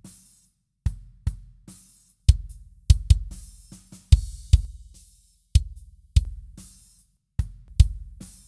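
Sampled acoustic drum kit in Superior Drummer 3 playing a sparse, dry groove with no other instruments. Kick drum hits are the loudest, each with a short click on top, with lighter snare and hi-hat hits between them.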